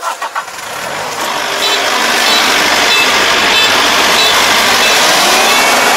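Kubota four-row combine harvester running close by, its engine and machinery noise growing louder over the first two seconds as it draws alongside and then staying loud. A few light knocks come right at the start.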